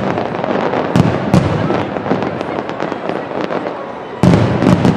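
Fireworks going off in rapid, irregular bangs and crackles over a steady background din, with a sudden louder barrage about four seconds in.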